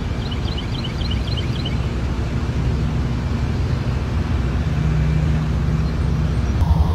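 A vehicle engine running with a steady low rumble, with a quick run of high chirps about a second in. The sound cuts abruptly to a different, louder engine-like rumble just before the end.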